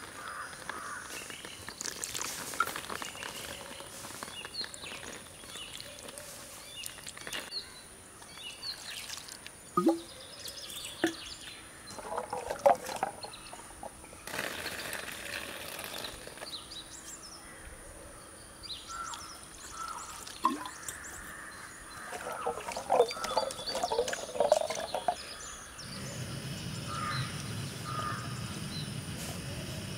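Water splashing and sloshing in a metal bowl as hands wash small fruits, in two short bouts, with faint bird calls around it. Near the end a low steady rumble sets in.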